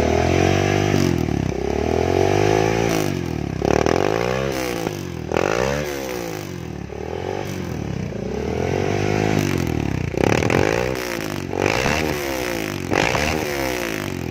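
Honda Verza 150's single-cylinder engine being revved through its freshly hollowed-out muffler, a series of throttle blips with the pitch rising and falling each time. The muffler's baffling has been bored out to give a deeper, louder note.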